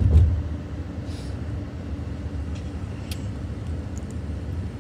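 Steady low rumble of a car's engine and road noise heard inside the cabin. It is louder at the very start and settles within the first half second, with a few faint clicks over it.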